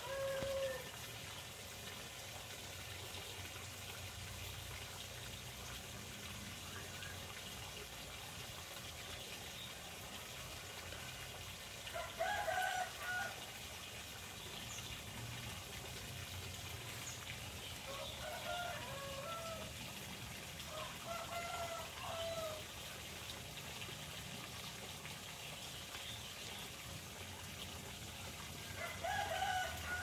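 Roosters crowing several times over a steady trickle of running water: a crow right at the start, one about twelve seconds in, two or three close together around twenty seconds in, and one more near the end.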